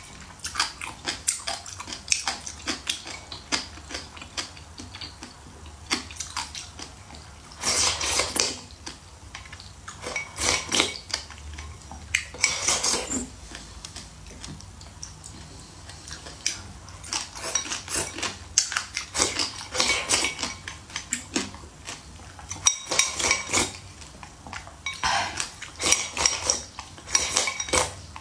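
Close-up eating sounds: chopsticks clicking against a ceramic bowl and crunching of pickled cucumber skin, in many short sharp clicks, with a few longer slurps of thin rice porridge drunk from the bowl's rim.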